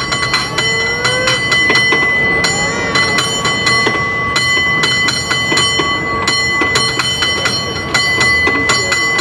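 San Francisco cable car bell rung by hand in a competition routine: quick strikes in an uneven, syncopated rhythm, several a second, with the bell's tone ringing on between them.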